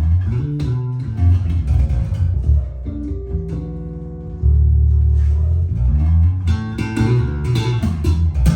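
Fodera Emperor II Elite electric bass played as a run of plucked notes. Several notes are held together around the middle, and a strong sustained low note starts about four and a half seconds in.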